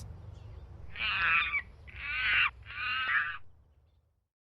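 A bird giving three harsh caws, each about half a second long, over a low steady hum that fades out near the end.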